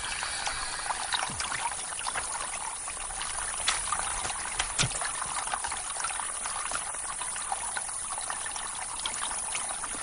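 Water trickling steadily through a newly dug mud channel, with many small splashes and drips: the channel has broken through and water is running along it.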